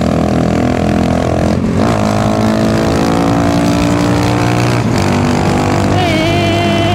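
Honda Grom (MSX125) single-cylinder four-stroke engine pulling hard under acceleration, its pitch climbing, with two brief breaks where gears are changed about one and a half and five seconds in.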